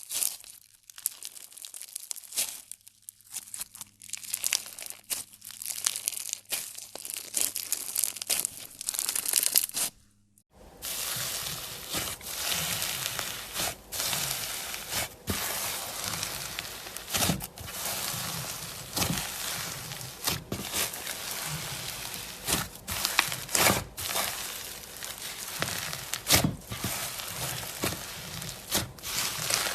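Crunchy slime being pressed and squeezed, a crackling full of sharp pops and snaps. It breaks off briefly about ten seconds in, then comes back denser and steadier.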